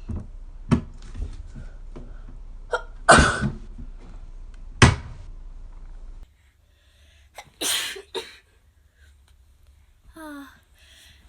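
A young woman sneezing: a loud sneeze about three seconds in, a short sharp one near five seconds, and another sneeze about eight seconds in, with small clicks and breaths between.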